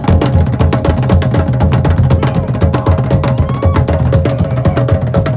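Tahitian drum ensemble playing a fast rhythm. Deep skin-drum beats run under a dense stream of sharp, rapid wooden strikes.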